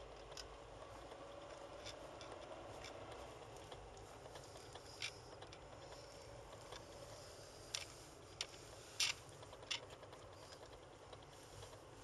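Faint steady road and engine noise heard inside a slowly moving car's cabin, with a few sharp clicks and taps scattered through it. The loudest click comes about nine seconds in.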